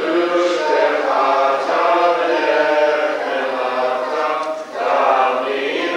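Congregation singing a Hebrew prayer melody together, with a brief break between phrases about four and a half seconds in.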